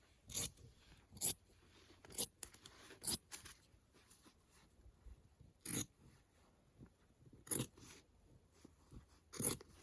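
Scissors snipping through cotton fabric in separate short cuts, one every second or two with pauses between.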